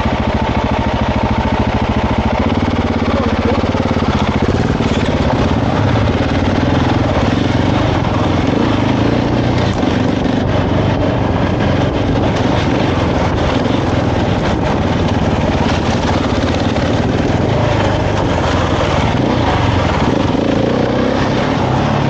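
Husqvarna 701's single-cylinder four-stroke engine running under way on a dirt trail. It picks up revs about two and a half seconds in, then pulls steadily with small rises and falls in pitch as the throttle changes.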